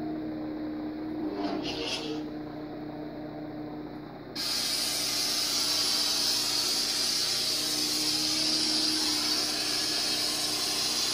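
Lightsaber sound font played through the saber's speaker: a low steady hum with one swing swell about a second and a half in. About four seconds in, a loud steady hiss sets in suddenly and holds, as the blade flares white.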